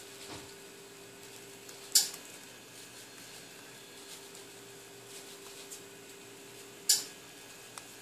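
Xylotrupes florensis rhinoceros beetle stridulating twice, about two seconds in and again five seconds later. Each sound is sharp and high-pitched and fades within a fraction of a second, over a faint steady hum.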